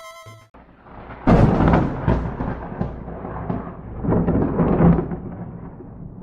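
Thunder: a sudden loud crack about a second in, then rumbling with a second swell around four seconds in, fading away toward the end.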